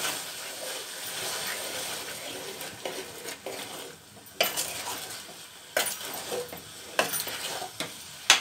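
A spoon stirring fried potatoes, paneer and peas with dry spices in an aluminium pot, the food sizzling lightly. The spoon scrapes and knocks against the pot, with sharp strokes about every second and a half in the second half.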